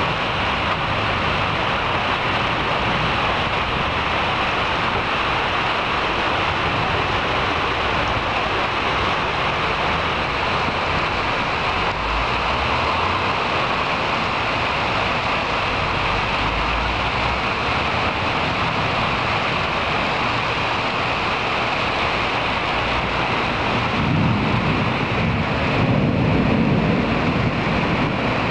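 Heavy rain and wind of a thunderstorm, a steady rushing hiss. Near the end a low rumble swells for a few seconds.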